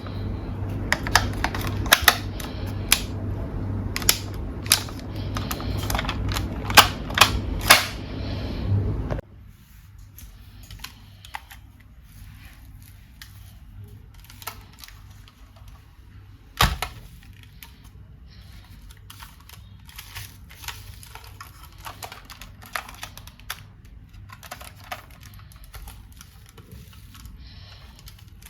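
Sharp clicks and taps of hard plastic being handled, dense over a steady low hum for the first nine seconds. The hum cuts off suddenly, leaving sparser, fainter clicks and one louder knock partway through.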